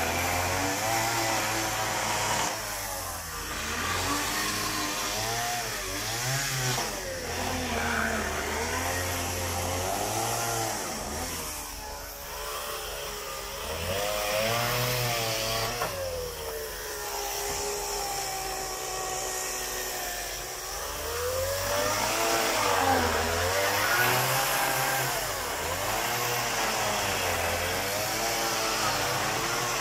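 Petrol chainsaw running, its engine pitch repeatedly rising and falling as it is throttled up to cut through wooden crate boards and eased off between cuts.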